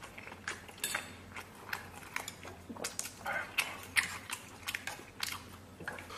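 Close chewing and mouth sounds of a person eating noodles, with irregular sharp clicks of wooden chopsticks against a stainless steel bowl and pan; the loudest click comes about four seconds in.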